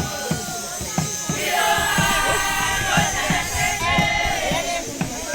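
A crowd of voices singing and chanting together, with repeated low thumps underneath.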